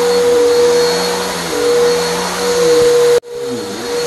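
Vacuum cleaner running steadily while pre-vacuuming dry soil and carpet powder out of a soiled carpet before steam cleaning. Its lower hum wavers as it is pushed back and forth. The sound cuts out abruptly for an instant about three seconds in, then picks up again.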